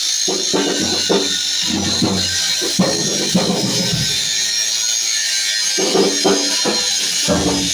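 Music with drums and a beat, over a steady high-pitched hiss that runs throughout.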